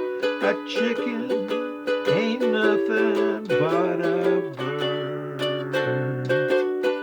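Ukulele strummed in a steady rhythm, playing the song's chords, with a wavering melody line over it.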